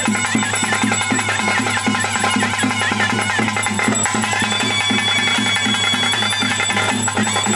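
Traditional music for a bhuta kola ritual: drums keep a fast, steady beat over a held low drone, while a reedy wind instrument plays a wavering melody.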